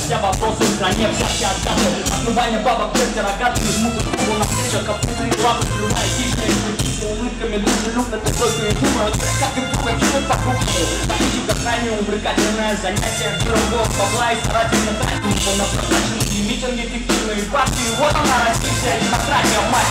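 Live rock band playing loud through a concert PA, with a pounding drum kit, electric guitar, bass and keyboard.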